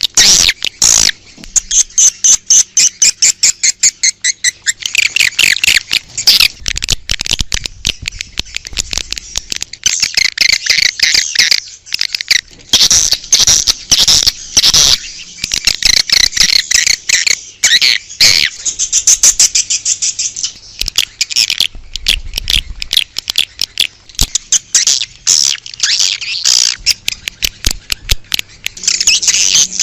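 Swiftlet lure call: a crowd of edible-nest swiftlets twittering, with fast runs of short, high chirps that carry on without a break.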